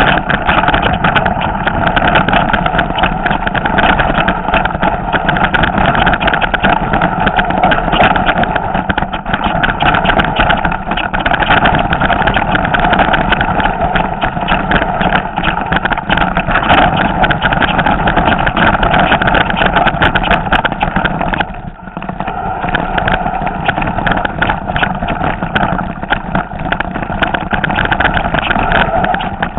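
Mountain bike running down a rough, stony trail, heard through a handlebar-mounted camera: a continuous loud rattle and rumble of the bike and camera mount jolting over rocks. It eases for a moment about two-thirds of the way through.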